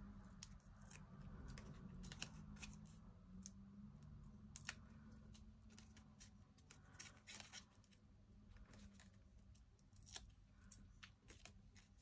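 Faint, irregular small clicks and paper rustles of hands working with paper craft pieces, such as peeling backing papers off foam adhesive dimensionals, over a faint low hum.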